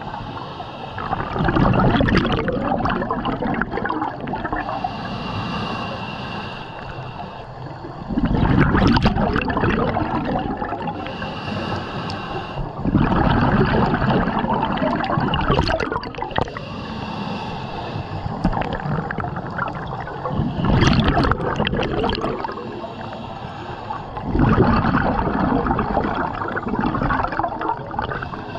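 Scuba diver breathing through a regulator underwater: exhaled bubbles gurgle out in loud surges every few seconds, with quieter inhalation hiss between them.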